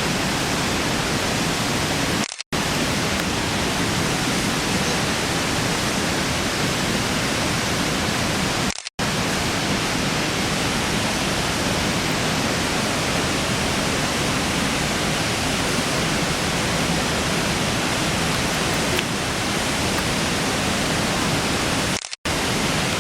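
Waterfall's steady, loud rush of falling water, cutting out briefly three times.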